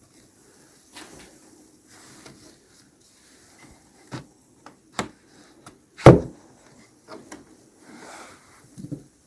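Wooden knocks and scrapes from a beehive frame being tugged by hand without a hive tool; the frame is stuck fast and won't come out. A handful of sharp knocks, the loudest about six seconds in.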